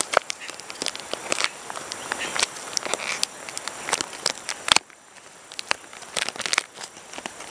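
Plastic packaging of a self-heating meal pack being handled and opened by hand: irregular crinkling and crackling, with one sharp snap a little under five seconds in.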